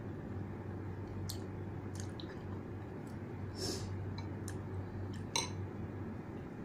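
A person chewing a mouthful of noodles, with a few sharp clicks of a metal fork and spoon against the bowl, the loudest about five seconds in, over a steady low hum.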